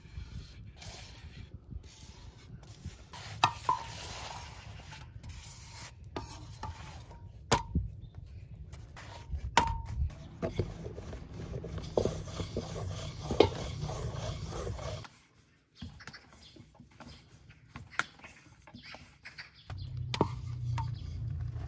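Wooden spatula scraping and tapping on an iron griddle while a flatbread is lifted and turned, with a few sharp knocks that ring briefly off the metal.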